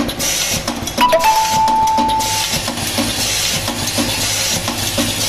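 Automatic blind-rivet feeding machine running: its vibratory bowl feeder hums steadily, with a repeating hiss and clatter from the mechanism a bit under twice a second. About a second in, a steady tone sounds for about a second and a half.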